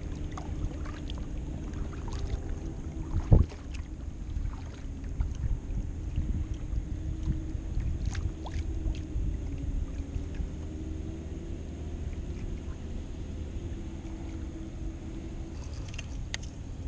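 Water lapping against a fishing kayak's hull over a steady low rumble, with scattered small clicks and knocks. One short, louder thump about three seconds in.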